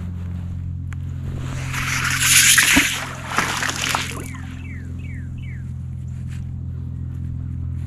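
A fishing magnet splashing into muddy creek water about two seconds in, a sloshing burst lasting a couple of seconds, over a steady low hum. Four short falling chirps follow soon after.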